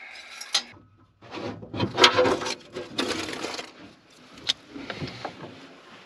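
Engine oil dipstick on a John Deere swather being drawn out of its tube and pushed back in: irregular metal scraping and rubbing with a few sharp clicks.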